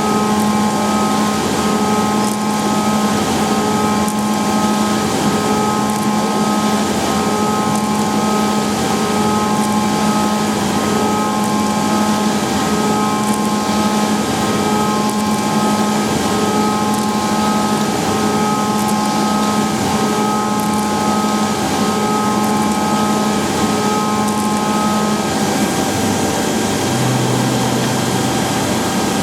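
Leadwell V-60iT five-axis CNC machining centre running, a steady mechanical whir with a constant hum and whine. Near the end the pitch changes: the steady tones drop out and a lower hum comes in.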